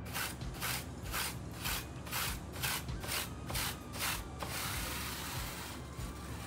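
A brush scrubbing the bare plate and switches of a mechanical keyboard with its keycaps removed: quick scratchy back-and-forth strokes, about three a second, giving way to a steadier brushing hiss about four and a half seconds in.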